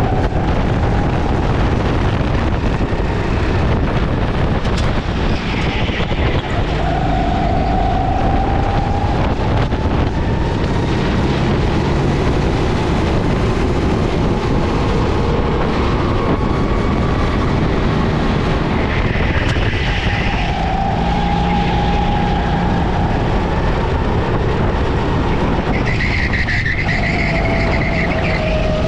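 Go-kart engine heard from on board the kart, its pitch rising and falling repeatedly over a steady rush of noise as the kart is driven at speed.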